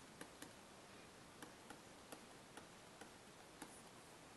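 Faint, irregular clicks of a stylus tapping a tablet screen while handwriting, about eight in a few seconds, over near silence.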